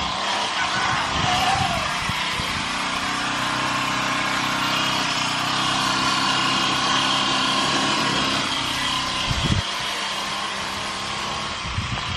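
Small petrol engine of a string trimmer (weed whacker) running steadily at speed. Its low engine tone drops away about three-quarters through, just after a knock.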